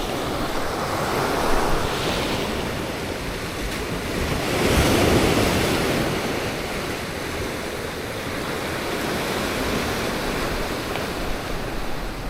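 Ocean waves surging and washing against rocky shoreline, a continuous rush of surf with a bigger swell about five seconds in, mixed with wind buffeting the microphone.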